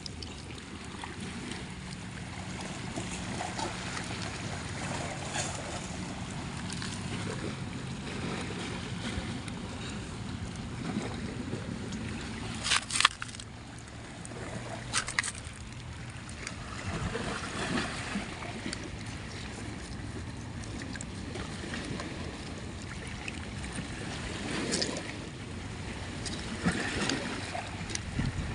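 A hand digging through shells and grit in a shallow tidal pool while gathering kepah clams: water sloshing and shells scraping, with a few sharp clicks of shells knocking together, the loudest about halfway through. A low steady hum runs under the first half.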